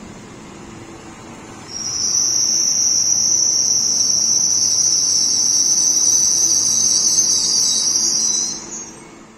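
A cicada's loud, steady, high-pitched buzz starts abruptly about two seconds in, holds for about seven seconds and fades out near the end. Beneath it, the low rumble of an electric regional train rolling away from the platform.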